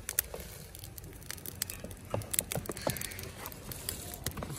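Soaked rice being pushed off a steel tray with a metal spoon into a pot of boiling jaggery water: scattered light clicks and scrapes of metal on steel over a soft, even hiss of the boiling pot.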